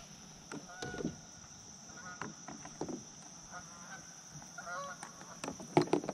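Canada geese honking faintly, four or five short separate calls spread across a few seconds, with a couple of sharp knocks near the end.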